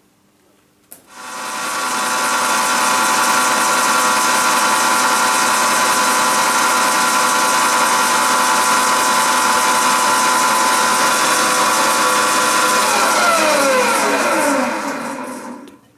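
Milling machine spindle with a grinding wheel mounted, started about a second in: it runs up to a loud, steady whine with a hiss, then near the end its pitch falls as it slows and it stops.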